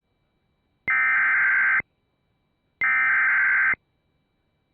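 Two bursts of Emergency Alert System SAME header data tones, the harsh digital warble that encodes an alert's type and area, here opening a National Weather Service special marine warning. Each burst lasts about a second, with a second's silence between them.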